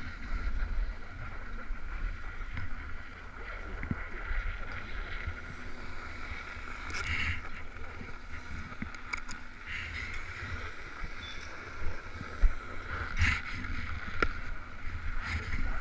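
Skis sliding over snow with wind rumbling on the camera microphone, broken by a few sharper scrapes in the second half.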